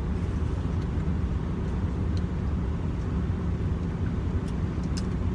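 Steady low rumble of a moving vehicle heard from inside the cabin, with a few faint clicks.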